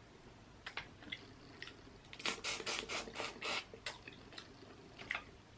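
Close-up wet eating sounds from a saucy crawfish boil: a few scattered sharp clicks, then a quick run of squishy, crackling bursts about two seconds in, lasting over a second, as the shellfish are pulled apart and eaten.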